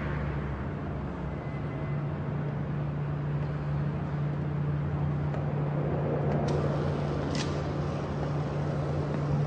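A steady low hum over a rumbling noise, with a few short sharp clicks in the last third.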